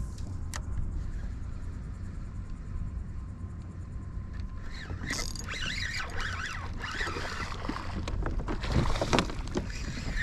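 Water splashing as a hooked snook thrashes near the surface, in repeated rough bursts that start about halfway through and are loudest near the end. Under it is a steady low rumble.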